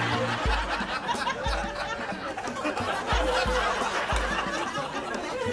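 People laughing and snickering, with a few low thumps underneath.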